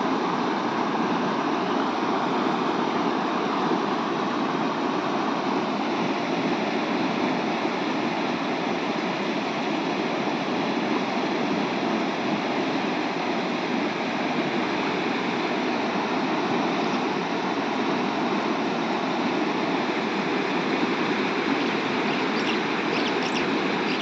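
Swollen, muddy river in spate rushing over rocks and rapids: a steady, loud rush of water.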